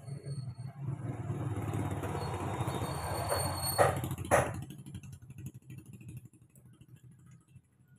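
A motorcycle engine running close by and fading away about five seconds in. Near the middle come two sharp metallic clicks from a hand tool working on the Karisma's cam chain tensioner.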